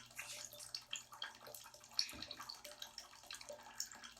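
Soft small splashes and drips of bathwater in a filled tub, scattered and irregular, with one slightly stronger splash about two seconds in.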